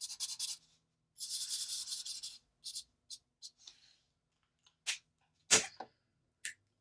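Alcohol marker stroking across paper: two longer scratchy strokes, then a few quick short ones. In the second half come a few sharp clicks and taps, the loudest of them a little past the middle of that stretch.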